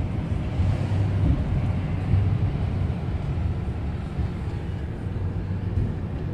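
Engine and road noise heard inside the cab of a moving pickup truck: a steady low rumble.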